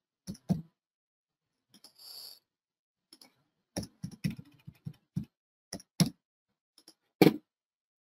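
Computer keyboard and mouse clicks: a few single clicks, a quick run of typing from about four to five seconds in, then more single clicks, with near silence between.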